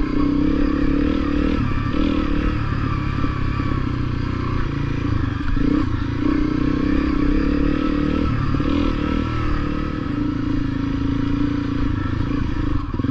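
Honda CRF250L trail bike's single-cylinder four-stroke engine running steadily as it is ridden along a dirt trail, its note wavering a little with small changes in throttle.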